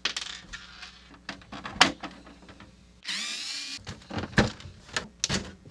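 Clicks and knocks of plastic and metal parts as an iMac G3's case is taken apart. A short power-tool whir comes about three seconds in.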